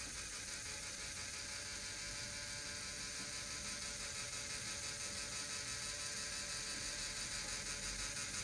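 A small electric motor driving a LEGO Technic sun-and-planet gear mechanism: a steady whir of plastic gears meshing, with a faint, regular flutter as the mechanism turns.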